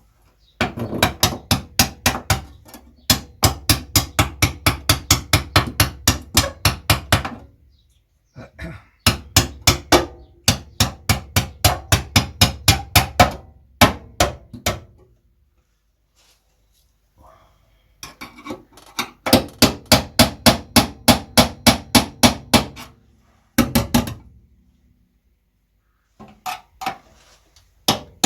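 A hammer striking a steel repair panel to fettle it into place, in fast runs of about four blows a second with ringing metal, broken by short pauses.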